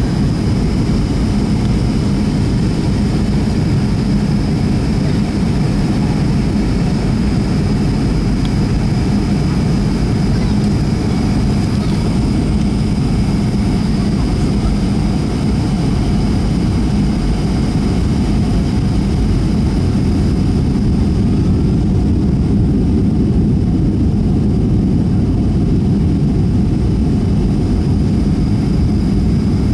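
Cabin noise of a Boeing 757-300 airliner in flight: a steady low rumble of jet engines and airflow with a thin, constant high whine.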